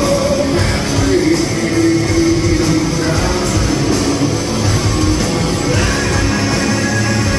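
Live hard rock band playing at full volume: heavy, distorted electric guitar riffing over bass and a drum kit, heard from among the audience.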